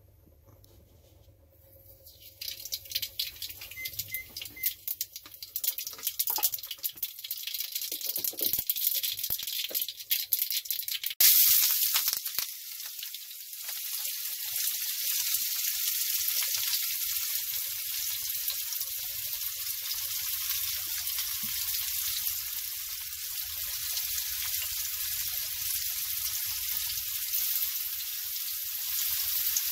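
Brown mustard seeds crackling and popping in hot vegetable oil in a frying pan. About eleven seconds in, a sudden loud hiss as chopped onions go into the oil, settling into a steady sizzle.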